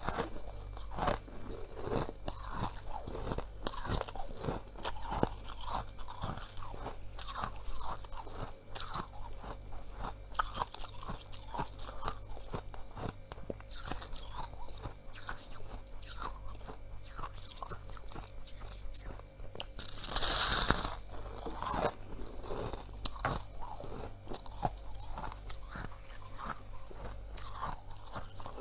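Freezer frost being chewed close to the microphone: a continuous run of crunches, with one louder, longer crunch about two-thirds of the way through.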